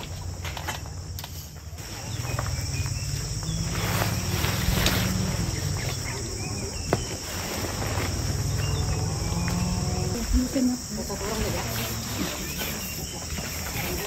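A steady high-pitched insect chorus, with the rustling and flapping of tent fabric being spread and handled, over a low rumble.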